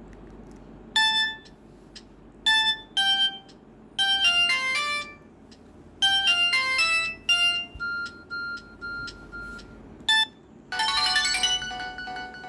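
Samsung GT-E1150 mobile phone playing an electronic ringtone melody of short, bright, separate notes. Quick descending runs give way to a string of short same-pitch beeps, then a dense burst of overlapping notes near the end.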